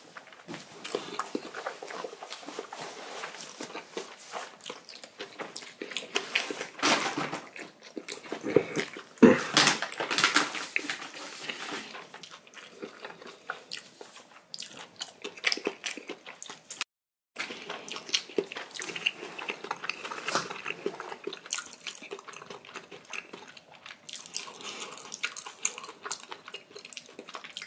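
Close-up eating sounds of jumbo instant ramen noodles being slurped and chewed, with many short wet clicks and smacks. The loudest stretch comes about nine to eleven seconds in.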